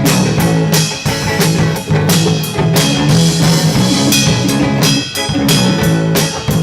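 Rock trio playing without vocals: electric guitar, bass guitar and drum kit, the drums hitting a steady beat over repeated bass notes.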